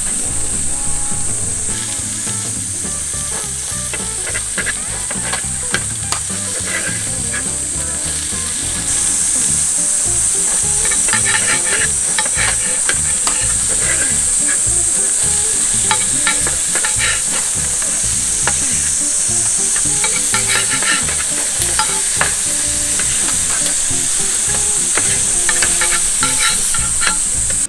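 Beef steak sizzling on a thick 6 mm iron griddle, with metal spatula and tongs clicking and scraping on the plate as the meat is turned and cut. The sizzle gets louder about nine seconds in.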